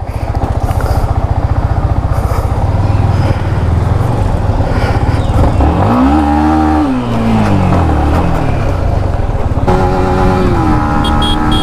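Yamaha MT-15's 155 cc single-cylinder engine running as the bike rides off. Its pitch rises and falls once about six seconds in, then holds steady near the end.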